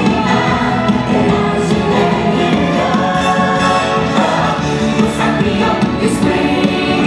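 Show music with a group of voices singing, loud and continuous.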